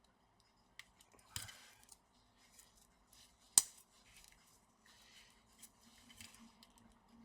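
Small clicks and scrapes from work on a laptop display hinge that is being loosened because it is very tight, with one sharp click about three and a half seconds in, the loudest sound, and a short scrape a little over a second in.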